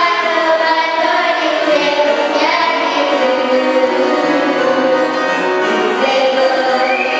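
A group of voices singing together, with long held notes that change pitch every second or two.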